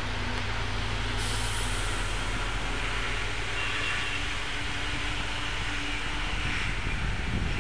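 FS D.345 diesel locomotive pulling away with a train of coaches, its engine running with a steady low drone. A brief hiss of air starts about a second in.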